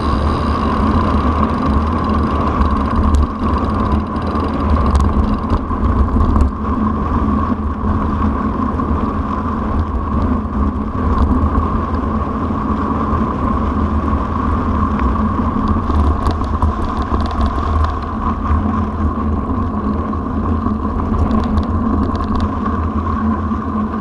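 Mountain bike ridden along a dirt track, heard through its onboard camera: a steady low rumble of wind and tyre noise with a constant hum, and a few faint clicks from the bumps.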